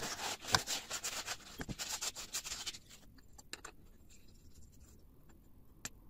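Paper towel rubbing and scraping along the metal tubes of a washing-machine heating element for about three seconds, wiping off limescale. Then a few light clicks as the element is handled.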